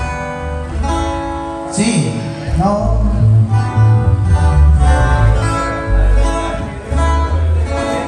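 A band playing during a sound check: strummed acoustic guitars over an electric bass line, amplified through the PA.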